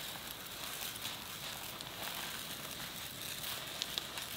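Dry rice pouring steadily from a bag into a plastic Vitamix blender jar: a continuous hiss of falling grains, with a few light clicks near the end.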